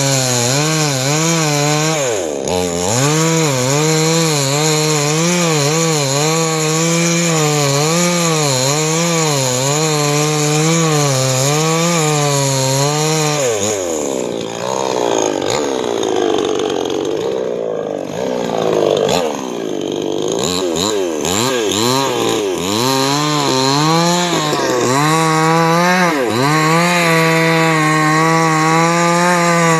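Petrol chainsaw running at high revs while cutting tree wood, its engine note wavering under the load. The pitch dips briefly about two seconds in, then sags and wanders for several seconds around the middle before climbing back to full revs.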